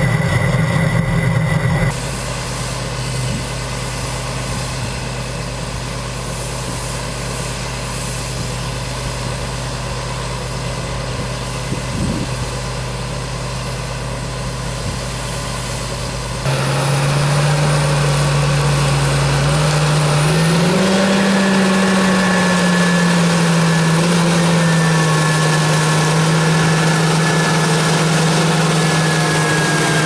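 Large farm tractor engine running steadily under load while a grain cart's auger unloads shelled corn. Later a louder, clearer engine note rises in pitch once, then holds steady.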